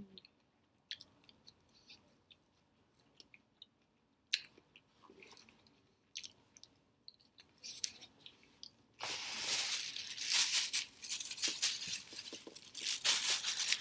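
Soft chewing of a french fry with a few small clicks. About nine seconds in, a loud, dense crinkling and rustling starts, from food packaging being handled.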